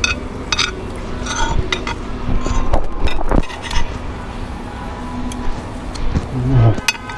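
A metal spoon clinking and scraping against a plate in a series of irregular clicks while someone eats, over a steady low background hum. A short low hum with a falling pitch comes near the end.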